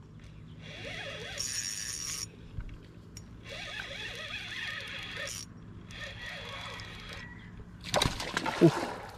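Fishing reel cranked in three bursts of whirring, each about a second long. Near the end there is a splash as the line and catch come up out of the water, all over a low steady hum.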